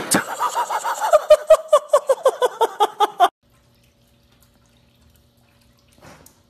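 A thump as a girl falls off a hoverboard onto a tiled floor, followed by a person laughing hard in quick high-pitched bursts for about three seconds. The laughing cuts off abruptly, leaving only a faint steady hum.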